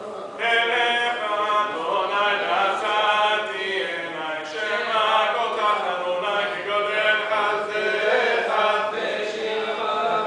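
Sephardic Selichot prayers chanted in Hebrew by male voices, a melodic liturgical chant that comes in strongly about half a second in and carries on without a break.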